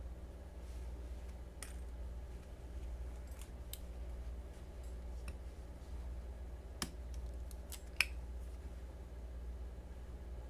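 Light metallic clicks and ticks from a channel-construction balisong (butterfly knife) being handled, its handles, latch and blade knocking together. They come irregularly, the two sharpest close together about two-thirds through, over a steady low hum.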